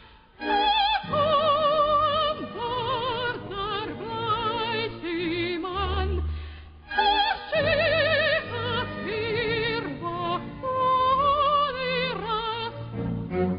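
Operatic soprano singing with a wide vibrato over an orchestra. The voice breaks off briefly about halfway through while a low orchestral note holds, then resumes.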